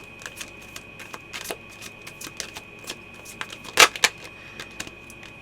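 Tarot cards being shuffled and handled: scattered light clicks and flicks of card stock, with two sharper snaps close together near four seconds in.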